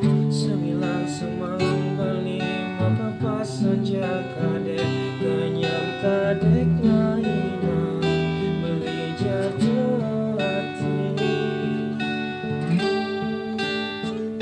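Band music led by a strummed acoustic guitar, with regular strokes and chords going throughout.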